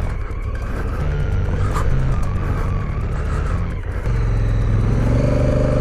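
A twin-cylinder adventure motorcycle engine running under load on a dirt track, with wind and tyre noise. It gets louder about four seconds in and rises in pitch near the end as the bike accelerates.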